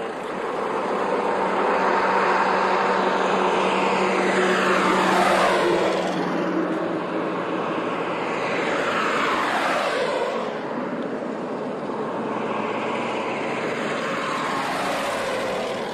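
Road traffic: vehicles driving past one after another, with about three separate pass-bys a few seconds apart.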